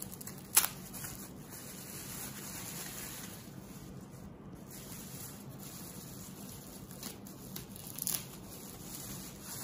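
Plastic bubble wrap rustling and crinkling as a small speaker is unwrapped by hand, with a sharp click about half a second in and a softer one near the end.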